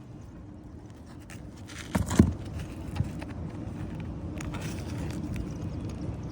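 Roofing work on an old asphalt 3-tab shingle roof: two sharp knocks about two seconds in and another a second later, with small taps and light scraping. A steady low hum sits underneath.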